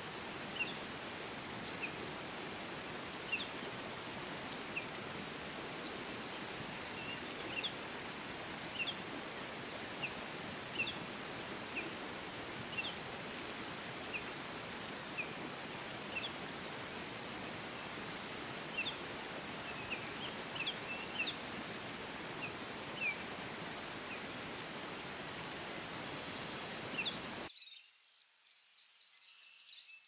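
Whitewater cascade in a rocky gorge, a steady rushing of water, with a bird's short high chirps repeating about once a second over it. Near the end the water sound cuts off suddenly, leaving quiet forest ambience with faint high ticking.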